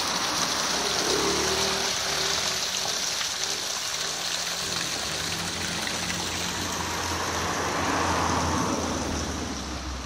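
Water pouring down a chestnut-stump artificial waterfall and splashing steadily into its stone basin, a continuous hissing patter that fades slightly near the end.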